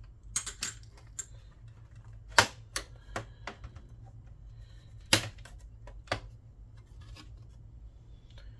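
Irregular sharp clicks and knocks from a PlayStation 3's parts and tools being handled during disassembly, loudest about two and a half and five seconds in, over a low steady hum.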